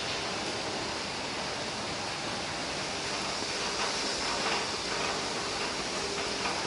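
Steady hiss of rain falling on wet pavement, with a few faint taps around the middle.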